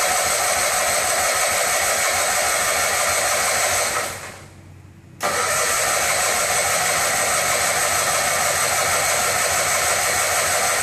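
Air Horse aircraft tug running steadily with a loud, hissy, high-pitched whir. It drops away about four seconds in and cuts back in suddenly about a second later.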